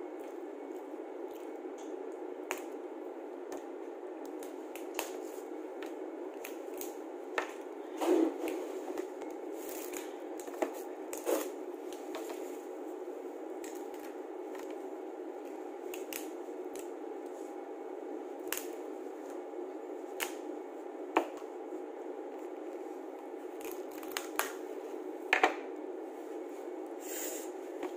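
Cooked crab being pulled apart by hand: the shell cracks and snaps in a string of short, sharp breaks, the loudest about eight seconds in and again near the end when the body is split open. A steady low hum runs underneath.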